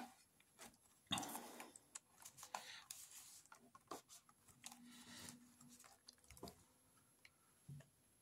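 Faint handling sounds of hands on a cardboard coin album and a coin: irregular soft clicks and taps with short rustles, the loudest rustle about a second in.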